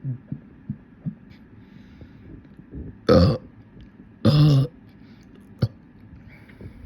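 A person's deliberate burps: two loud burps about a second apart, the second a little longer, preceded by small throat clicks and low grunting sounds and followed by one sharp click.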